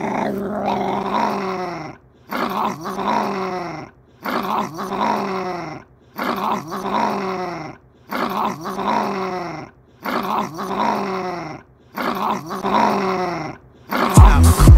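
Small dog growling over a basketball it is guarding from a reaching hand, in seven bouts of under two seconds each with short breaks between them. Hip-hop music with heavy bass comes in near the end.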